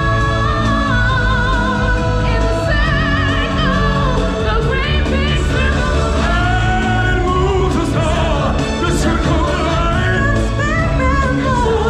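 Live stage-show music: singers holding long notes with vibrato over a loud, full backing track.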